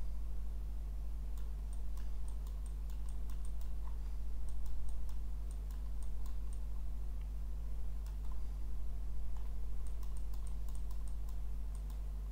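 Scattered light clicks from a computer mouse and keyboard over a steady low hum.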